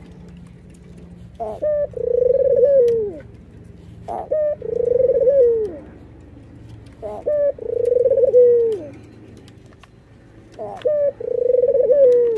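White Barbary dove (ringneck dove) cooing, four calls about three seconds apart. Each call is one or two short sharp notes followed by a long rolling coo that falls away at its end.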